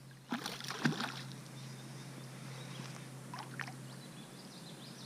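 Handling noises aboard a small fishing boat: a couple of sharp knocks near the start and light scrapes later, over a steady low hum that stops about four seconds in.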